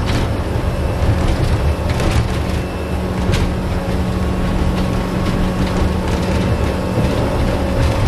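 Small boat under way: its motor running steadily with a low hum, and the hull knocking and splashing over small waves.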